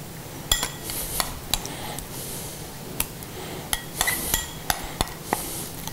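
Spoon clinking and scraping against glass bowls as thick batter is scraped onto marinated quail pieces: about nine irregular sharp taps, several ringing briefly like glass.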